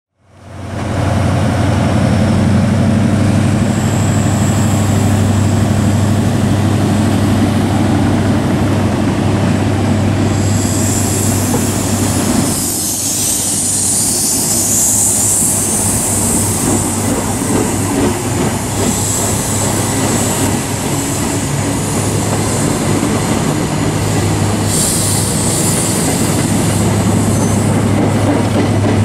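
LNER High Speed Train, its Mark 3 coaches rolling slowly past, with a steady low diesel engine drone under the running noise. A high-pitched hiss swells about ten seconds in and again near the end.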